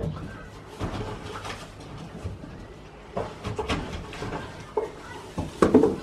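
Scattered knocks and thumps at irregular intervals, with a louder cluster near the end.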